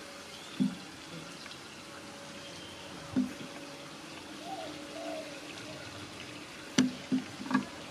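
Quiet outdoor ambience: a faint steady hum, soft two-note calls a little past the middle, and a few dull knocks, loudest in a quick cluster near the end.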